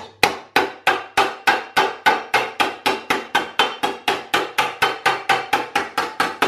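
Panel hammer striking the edge of a sheet-metal panel held over a steel bench plate, folding a sharp lip into it. The blows come in a steady run of about three a second, each with a short metallic ring.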